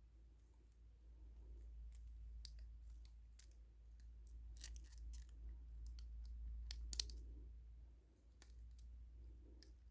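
Faint scattered clicks and small taps of small plastic miniature pieces being handled, one sharper click about seven seconds in, over a steady low hum.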